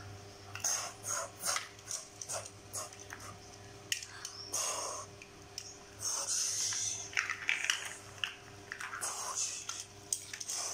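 Scattered light clicks and clatter of small plastic toy bricks being handled, with some rustling, over a faint steady hum.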